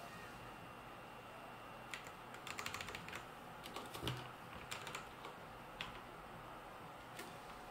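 Typing on a computer keyboard in short bursts: a quick run of keystrokes about two seconds in, then scattered single key presses. A dull thud about four seconds in is the loudest moment.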